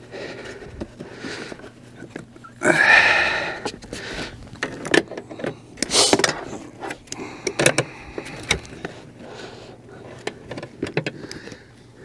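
Hands working plastic interior trim and carpet loose at the base of a 2001 VW Beetle's B-pillar: scattered clicks and knocks, with a louder scraping rustle about three seconds in.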